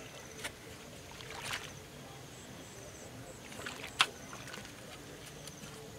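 A long-handled digging tool working wet mud and shallow paddy water: a few scattered knocks and wet strikes, the sharpest about four seconds in.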